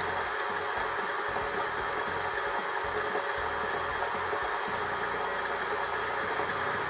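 KitchenAid stand mixer motor running steadily at its lowest speed, its beater working through crumbly shortbread dough in a steel bowl as flour is mixed in.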